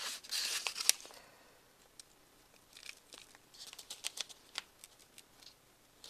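Potting soil rustling and crackling as it is sprinkled and pressed by hand into a thin plastic seedling cup, with the cup's plastic crinkling. A denser rustle in the first second ends in a sharp click, followed by scattered small crackles and taps.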